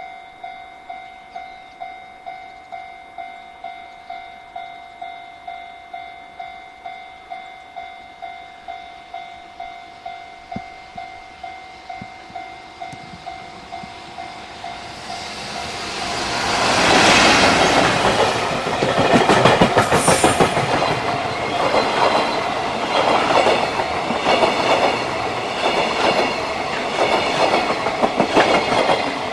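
Japanese level-crossing warning bell ringing at about two strikes a second. About fifteen seconds in, a JR Freight train arrives and passes loudly, its wheels clattering rhythmically over the rail joints while the bell keeps ringing.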